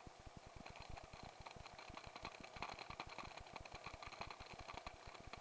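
Helicopter rotor beating in rapid, regular low pulses, heard faintly through a skid-mounted camera, with a wavering hiss above it.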